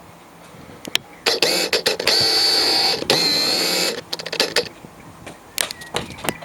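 Zuiko Digital 50mm f2 lens's autofocus motor whirring for about two and a half seconds as it drives focus, recorded through the Olympus E-P1's built-in microphone. Sharp clicks come before it and after it.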